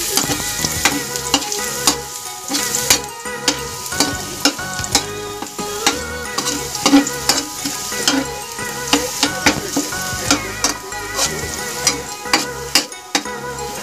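Minced garlic sizzling in a little cooking oil in a metal wok, sautéed for adobo, while a ladle stirs it and scrapes and clicks against the pan many times at an uneven pace.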